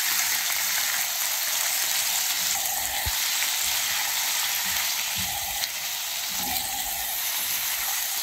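Boneless chicken pieces frying in hot oil in a pan, giving a steady, even sizzle at the start of frying. A few faint low knocks come through.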